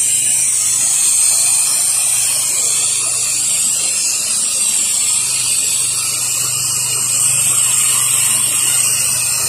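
Pressure washer wand spraying a jet of water onto vinyl siding, rinsing off the cleaning solution: a steady high hiss over a steady low hum.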